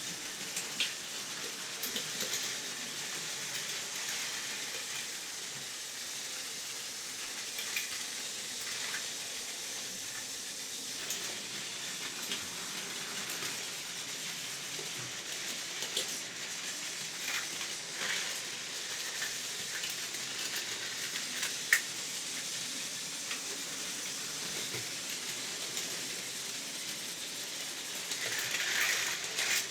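Battery-powered Plarail toy train running on plastic track: a steady high whirring rattle with scattered clicks.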